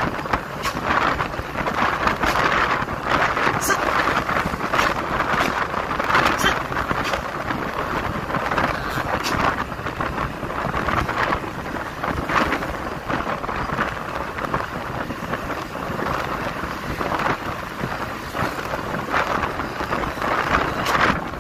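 Wind rushing and buffeting over the microphone of a camera riding along a road, a steady noisy rush with frequent short gusty thumps, mixed with road noise.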